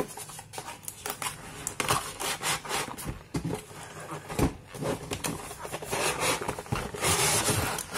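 Cardboard box opened by hand: end flaps pulled and scraped, with many short knocks and rubs, then a longer scraping rush near the end as the inner cardboard tray slides out of the box.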